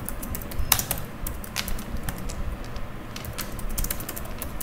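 Typing on a computer keyboard: irregular key clicks, some in quick runs.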